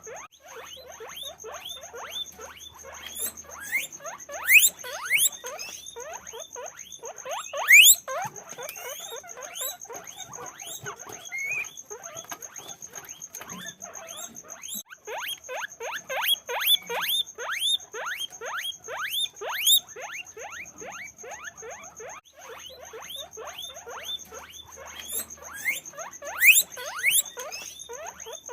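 Guinea pigs squeaking nonstop: a dense run of short, rising squeaks, several a second, with a few louder, higher ones standing out. A steady thin high-pitched tone sounds under them throughout.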